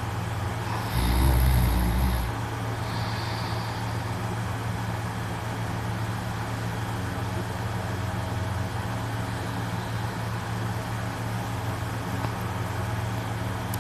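A sleeping young man snores once, a low rumbling breath about a second in, over a steady low hum.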